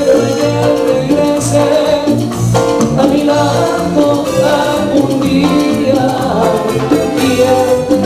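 Live Latin tropical dance band playing, with electric bass pulsing under a steady beat and sustained melody notes.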